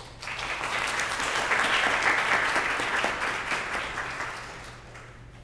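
Audience applauding: the clapping swells over the first two seconds, then fades away over the next three.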